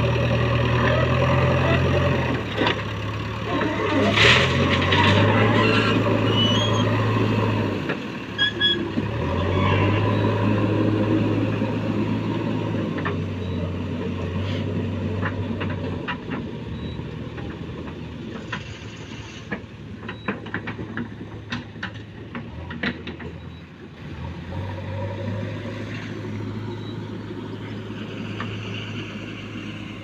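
JCB backhoe loader's diesel engine working under load, rising and falling in long stretches as it lifts and dumps and then drives off. A sharp clank comes about four seconds in, and scattered knocks and rattles follow in the middle of the stretch.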